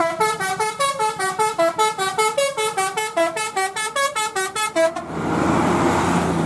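Bus telolet horn playing a fast tune of short stepped notes, about five a second, for about five seconds. Then it stops and a steady noisy rush remains.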